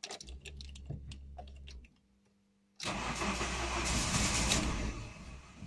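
Car engine cranked by its starter on its first start after a piston-ring replacement. A short try of about two seconds comes first, then after a brief pause a longer, louder try of nearly three seconds that cuts off without the engine settling into idle. The owner puts the trouble down to not enough petrol having been pumped through.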